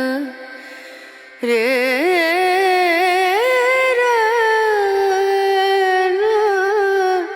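Hindi song played as a headphone sound demo: one singer holds long, ornamented notes with vibrato. The singing drops to a lull just after the start, and a new phrase comes in at about a second and a half.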